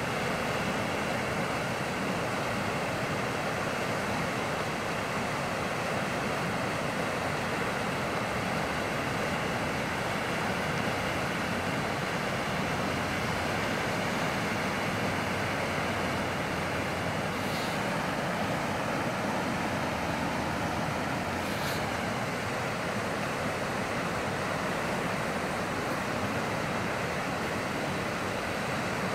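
Muddy floodwater of a monsoon-swollen desert creek rushing past in a steady, even wash of noise.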